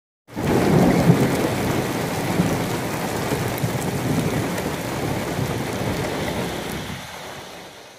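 Heavy rain pouring onto a wet road, a dense steady hiss with a low rumble underneath; it fades out near the end.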